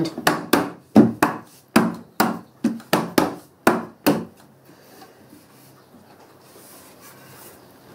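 About a dozen firm thumps of hands on a loose solid-pine top, two to three a second, stopping about four seconds in. The top is being pressed down onto the frame to mark where the dowels will go.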